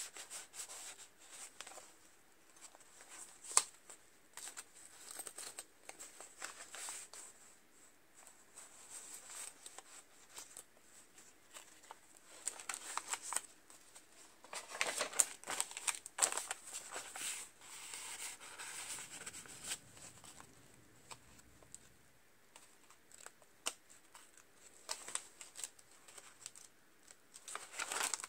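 Pages and paper flaps of a handmade coil-bound journal being turned and handled: irregular rustling and crinkling of paper with scattered soft taps, busiest about halfway through.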